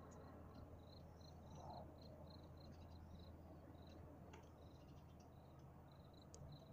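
Faint cricket chirping: a quick, even run of short high chirps, over a low steady hum.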